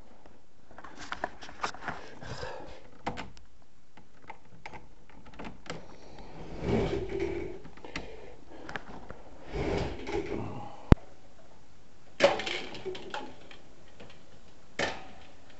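Handling noises of electrical wiring work: scattered clicks, knocks and short rustles as insulated wire is handled at a breaker panel and pulled from spools, with one sharp click about two-thirds of the way in.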